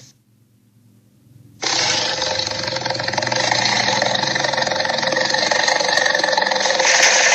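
Tyrannosaurus roar sound effect: one long, rough roar that starts abruptly after a short pause.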